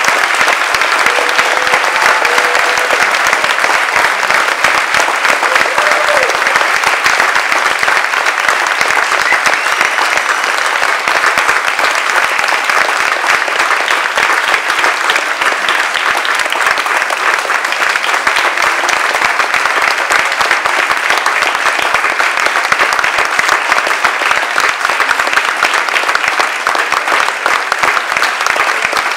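Audience applauding, a loud and steady clapping of many hands that runs on without a break.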